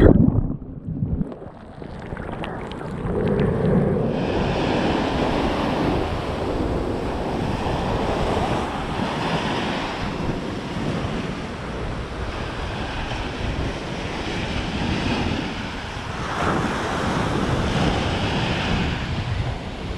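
Ocean surf breaking and washing up the sand in swelling rushes, with wind rumbling on the microphone. The wash dies down briefly at first, builds again about three seconds in, and another wave surges about sixteen seconds in.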